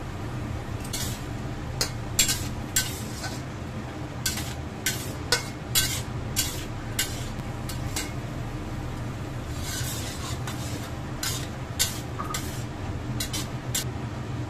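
Metal spatula scraping and clinking against a stainless steel wok in quick, uneven strokes as vegetables and shrimp are stir-fried, with a short lull partway through. A steady low hum runs underneath.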